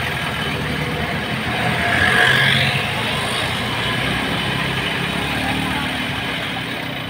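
Engine of an odong-odong tourist-train vehicle running as it pulls slowly away, over street traffic noise, with a louder swell about two seconds in.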